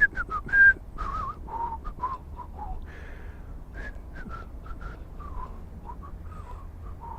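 A person idly whistling a wandering tune in short, wavering notes, over a low steady rumble.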